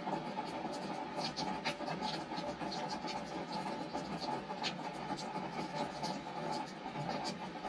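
Rain falling on a wooden deck: a steady hiss of rainfall with single drops ticking irregularly on the wet boards.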